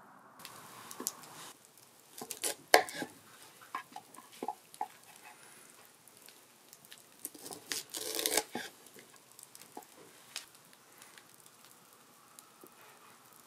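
Cooking and handling sounds: a hiss like sizzling that cuts off about a second and a half in, then scattered clicks and knocks of utensils and food being handled, with the loudest knock near three seconds and a longer rustling scrape about eight seconds in.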